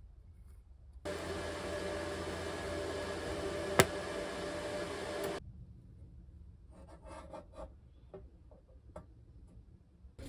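A steady, harsh metalworking noise runs for about four seconds, with one sharp crack partway through, and stops suddenly. Light clinks and taps of steel parts being handled on a steel plate follow.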